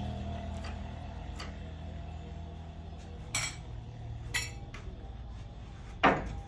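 A few light clicks and clinks, then one louder knock about six seconds in, as a large wooden wardrobe frame is handled, over a low machine hum that fades away partway through.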